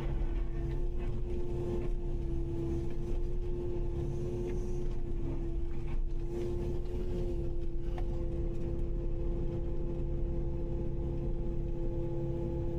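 Kubota KX080-5 excavator's diesel engine running steadily, with a constant hum over a low rumble and a couple of faint knocks.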